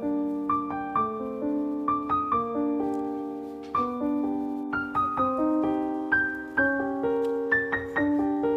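Background music: solo piano playing a gentle melody, notes struck and left to ring.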